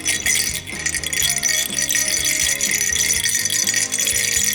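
A cat rattle toy being shaken and tossed about in quick, dense rattling bursts, over background music.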